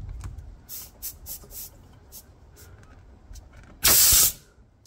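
Air hissing out of a car tire through a puncture as a nail is pulled from the tread with pincers: a few short spurts, then a loud hiss of about half a second near the end.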